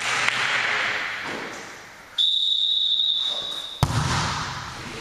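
Referee's whistle blown in one steady high note for about a second and a half, signalling the serve. Right after it comes a sharp slap of the server's hand striking the volleyball, echoing in the gym.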